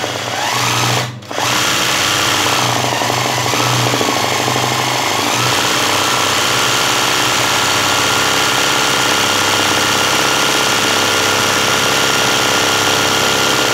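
Sewing machine running at a steady high speed, stitching a dense satin-stitch fill for free-motion embroidery. It stops briefly about a second in, then runs on without a break.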